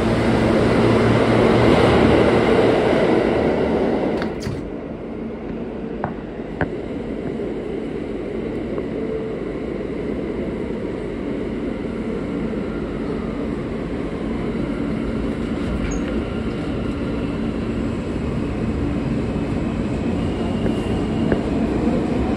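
An R160 New York City subway car running, heard from on board: a steady rumble of wheels on track with a low motor hum. The noise drops sharply about four seconds in and carries on quieter, with a couple of sharp clicks soon after.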